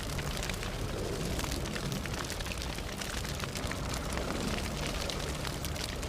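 Fire burning, with many sharp crackles and pops over a steady low rumble.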